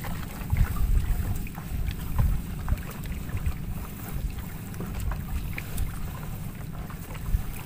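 Wind buffeting the microphone in a low, uneven rumble, with faint scattered clicks and rustles from a gill net being handled as a king mackerel is worked out of the mesh.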